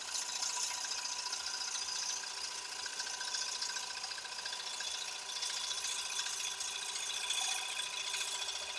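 Wood lathe running while a 3/8-inch bowl gouge takes a shear cut along the outside of a walnut bowl. A steady hum with a few held tones sits under the gouge's hissing scrape on the wood, which swells and eases as the cut moves.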